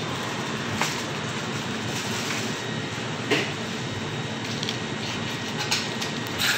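Steady hum of shop ambience with four short clicks and taps spread through it, the loudest a little past halfway, as banknotes and coins are put down on the counter.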